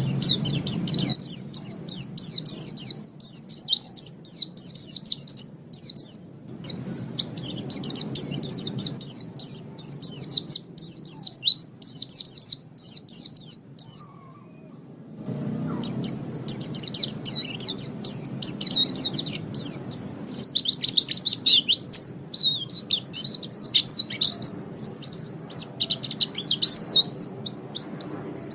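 White-eye (pleci) singing a rapid, high chattering song of quick notes, with a short pause about halfway.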